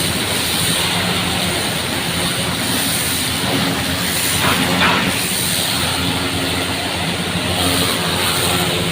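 Engine of the flushing rig running steadily with a low hum, with the hiss of water jetting from the hose over it as mud is washed off the ground.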